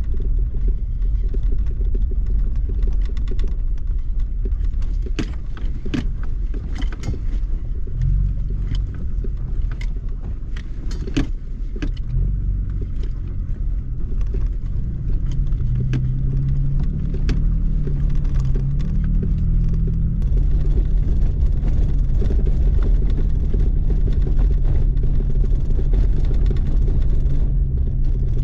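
Toyota Tacoma pickup driving over a rutted dirt road: a steady low engine and tyre rumble, with the engine note stepping up in pitch a couple of times and a few sharp knocks or rattles from bumps.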